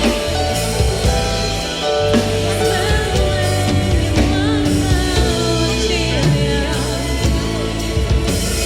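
Swahili gospel worship song playing: band backing with held bass and keyboard notes, and a voice singing over it.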